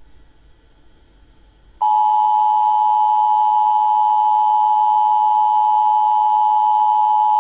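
Emergency broadcast alert tone: a loud, steady electronic tone that starts abruptly about two seconds in and holds without a break, after a faint hum.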